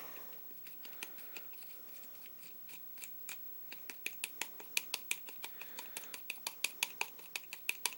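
Soldering-iron tip tapping lightly on a SIG P226's plastic grip panel, stippling texture into it: small sharp ticks, sparse at first, then a quick, even run of several a second from about halfway.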